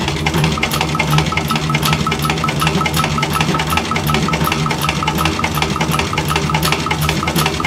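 TAKING TK-341N industrial sewing machine running at a steady speed, stitching fabric lining, with a rapid, even rhythm of needle strokes over the motor's hum.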